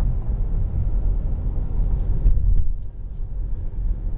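Low road and engine rumble of a moving car heard from inside the cabin, with a few faint clicks about two to three seconds in.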